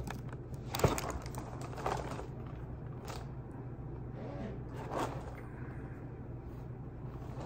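A few faint knocks and scrapes, the clearest about a second in, over a steady low hum.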